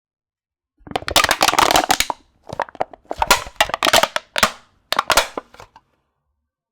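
A metal can being smashed and crushed very close to the microphone: four bouts of crackling, crumpling metal, starting about a second in, the first and third the longest.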